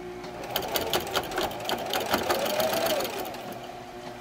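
Sewing machine with a walking foot stitching heavy vinyl: a fast, even run of needle clicks, about six a second, starting about half a second in. The motor's whine rises and falls in pitch before the stitching eases off near the end.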